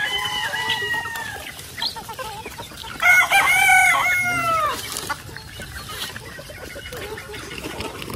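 Gamefowl roosters crowing twice, one crow at the start and a louder, longer one about three seconds in, over the clucking of the feeding flock.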